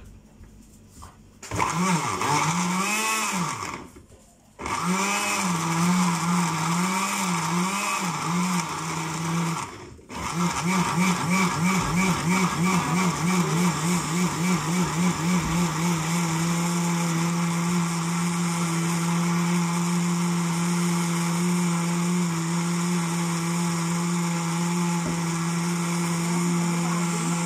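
Countertop blender motor running in three bursts as it chops banana and carrot chunks in milk, its pitch wobbling under the load of the pieces at first, then running at an even, steady pitch once the mixture has turned smooth.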